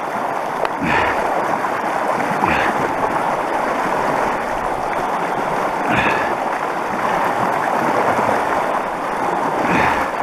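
Fast-flowing mountain river rushing close by, with a short splash every few seconds as legs wade through knee-to-thigh-deep current.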